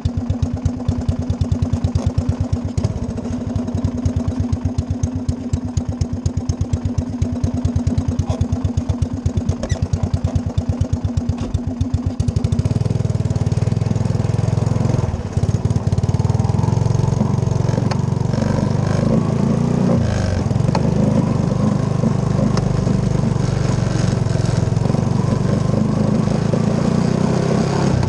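Three-wheeler ATV's single-cylinder engine idling with an even putter, then about twelve seconds in it revs up and runs louder and steadily as the machine drives off.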